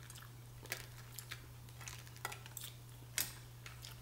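Small boiled crawfish being handled on a glass platter: scattered light clicks and cracks of shell against shell and glass, the sharpest about three seconds in, over a steady low hum.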